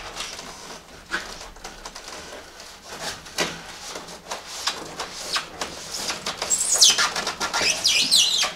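Rustling, scraping and clicks of 12-gauge Romex electrical cable being handled and worked into the chase of a foam insulation wall panel. Near the end comes a louder stretch of high, squeaky rubbing.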